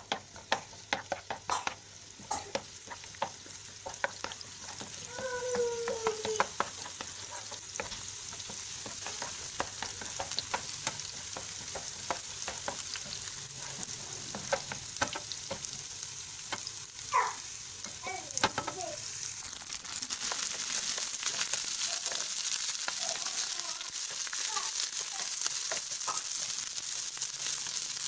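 Chopped shallots and scallion sizzling in hot oil in a nonstick frying pan, stirred with a plastic spatula that clicks and scrapes against the pan. The clicks are thickest in the first few seconds, and the sizzle gets louder about two-thirds of the way through.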